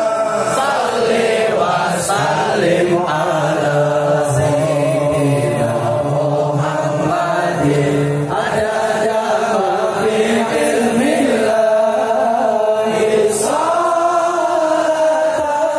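Many voices chanting an Islamic devotional qasidah together, amplified singing carried over a crowd singing along, with long held wavering notes. A few sharp hits cut through the singing.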